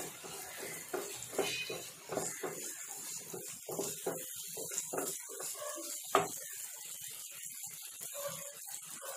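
Chopped onions sizzling in hot oil in a non-stick pan while a wooden spatula stirs them, scraping and tapping the pan over and over. There is one sharper knock of the spatula about six seconds in.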